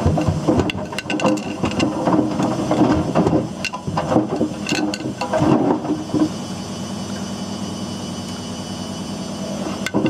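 Whirlpool WWDC 7210/1 washing machine drum turning with hard objects inside, which tumble and knock against the drum in an irregular clatter. About six seconds in the knocking stops and a steady running hum is left, and the clatter starts again near the end.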